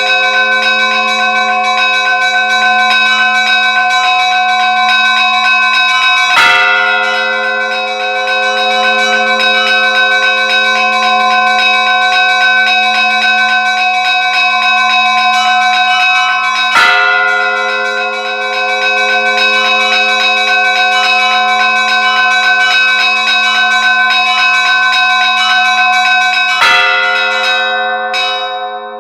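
Church bells ringing together: smaller bells chime in a fast, continuous patter over a steady ringing tone, and a heavier bell strikes three times, about ten seconds apart. The fast chiming stops shortly before the end.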